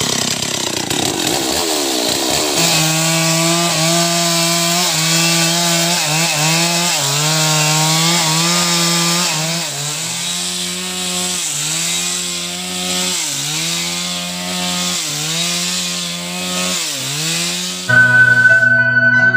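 Stihl chainsaw running at high revs, cutting through a felled log, its pitch dipping again and again as the chain bites into the wood. Near the end, marimba music cuts in.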